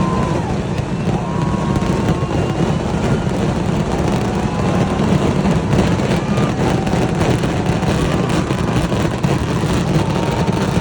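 Massed firecrackers of a vedikettu fireworks barrage going off so densely that the bangs merge into one continuous rumble, with many sharper cracks through the middle. Short whistling tones rise and fall over it.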